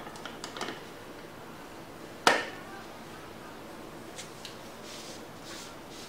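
Light clicks from the parts of a USB mini humidifier being handled, then one sharp knock about two seconds in as its wood-grain cover is set onto the base, followed by faint rustling.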